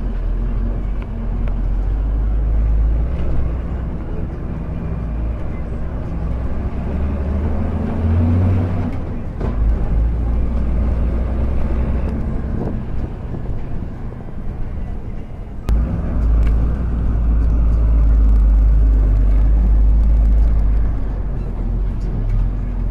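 Bus engine and tyres on a rough gravel road make a steady, loud low rumble. The sound dips briefly, then comes back with a sharp knock about sixteen seconds in.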